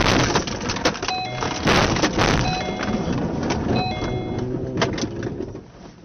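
A car crash from inside the car: a sudden loud bang, then heavy rattling and knocking as the car swerves off the road onto the verge. A short tone sounds three times, about a second and a half apart.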